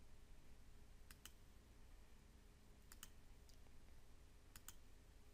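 Computer mouse buttons clicking faintly, three times, each click a quick pair of ticks (press and release), with a fainter single tick between the second and third.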